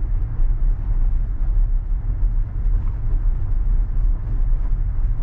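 Road noise inside the cabin of a Tesla Model 3 driving on a dirt road: a steady low rumble from the tyres rolling over the dirt, with no engine sound since the car is electric.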